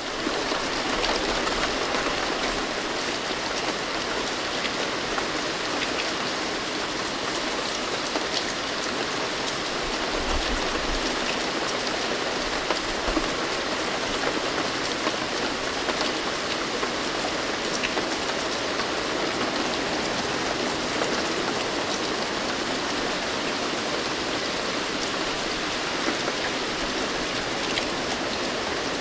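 Steady rain falling: a dense, even hiss with scattered individual drop ticks.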